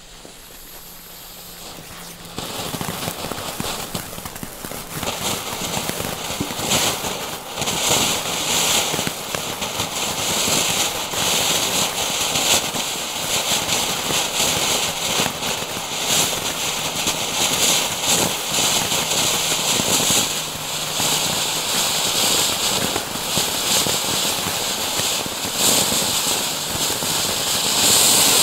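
Nico glitter-rain ground fountain spraying sparks: a steady hiss that starts about two seconds in, thick with crackling, growing louder to its fullest near the end.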